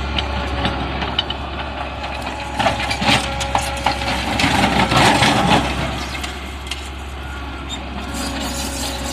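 A heavy machine's engine running steadily while concrete is broken and scraped, with irregular cracking and grinding that is loudest in the middle.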